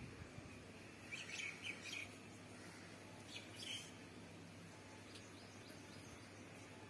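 Faint bird chirps in the background, in two short clusters, about a second in and again about three and a half seconds in, over a faint steady hum.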